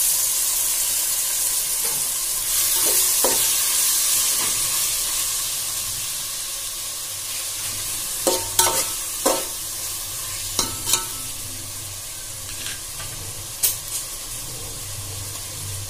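Chopped tomatoes and sliced onions sizzling in hot oil in a pot, the sizzle loudest at first and slowly easing off. In the second half a spatula stirring the pot knocks and scrapes against its side several times.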